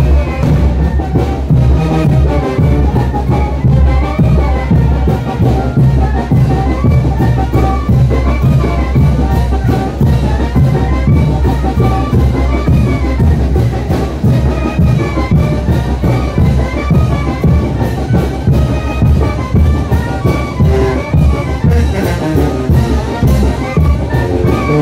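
Brass band playing Chinelo dance music, trumpets and trombones carrying a repeating tune over a steady drumbeat.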